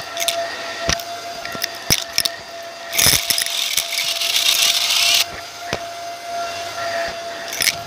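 Vacuum cleaner running with a steady motor whine, its floor head on carpet sucking up small crunchy bits that click and rattle up the wand. From about three to five seconds in, a louder rushing hiss sounds over the whine.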